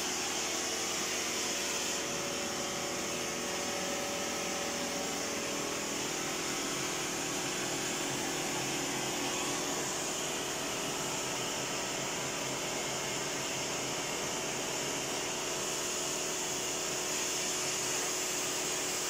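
Glassworker's bench gas torch running: a steady rushing hiss with a low hum beneath it.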